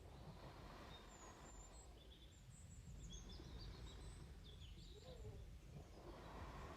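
Near silence: a faint, steady low background rumble with distant birds chirping now and then.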